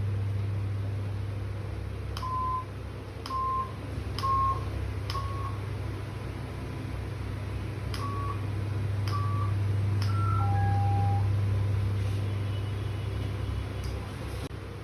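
Electronic beeps from an electronic device, each starting with a button-like click. Four short beeps about a second apart, a pause, three more rising slightly in pitch, then one longer, lower beep. A steady low hum runs underneath.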